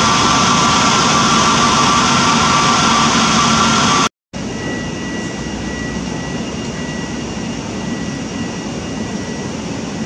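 Pratt & Whitney PW1100G geared turbofan engines of an Airbus A320neo running at taxi idle, a steady drone with a whine. About four seconds in the sound cuts off briefly and gives way to a quieter steady drone with a thin high whine.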